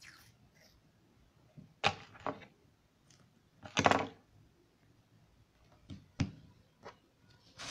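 Short bursts of handling noise at a tabletop as adhesive tape is pulled and torn, with a longer scratchy rip about four seconds in and a sharp knock of something set down about two seconds later.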